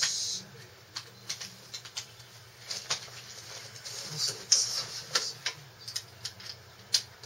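Scattered light clicks and taps of small objects being handled, with a short rustle at the start and another about four and a half seconds in.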